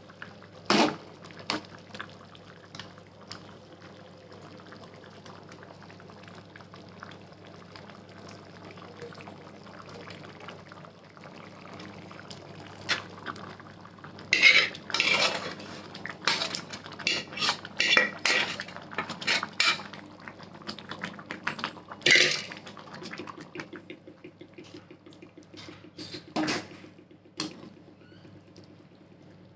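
A metal spoon clinking and scraping against steel pots as cooked foxtail millet and dal are spooned into simmering vegetables. There are a few single knocks near the start, then a dense run of clinks about halfway through, followed by more single knocks.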